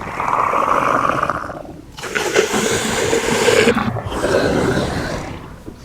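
Dinosaur roars: three long, rough roars one after another, each lasting just under two seconds.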